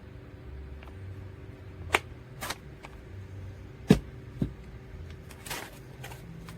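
A handful of separate sharp knocks and clicks, the loudest about four seconds in, over a steady low hum.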